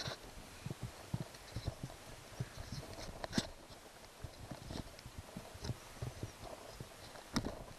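Irregular light knocks and clicks of hands handling the plastic parts of an old gas leaf blower while a brittle, crystallized fuel line is pulled out, with two sharper clicks about three and a half and seven and a half seconds in.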